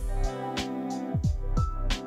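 Background music with a steady beat: a deep kick drum about every two-thirds of a second under sustained chords.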